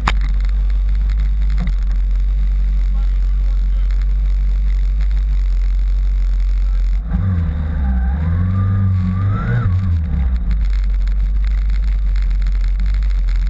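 Motorcycle engine idling with a steady low rumble. About seven seconds in it pulls away, the engine note rising and falling as it gets under way.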